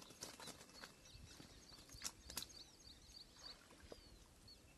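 Near silence with small birds chirping faintly and repeatedly in the background, and a few sharp clicks and rustles of handling in the reeds, the loudest about two seconds in.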